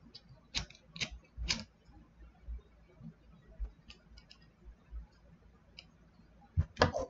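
Handheld lighter struck three times about half a second apart to light a small pipe, each strike a sharp click. Faint ticks follow, then a few louder clicks near the end.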